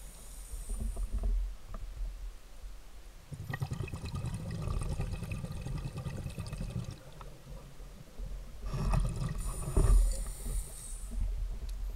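Scuba diver's breathing through a regulator heard underwater: several seconds of bubbling exhalation, then the hiss of an inhalation near the end.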